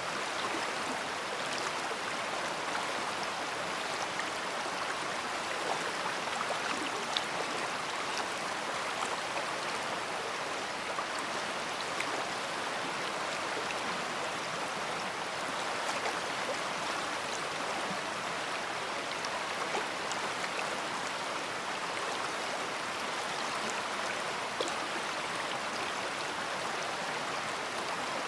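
A big river flowing: steady rushing water with small scattered splashes and ticks.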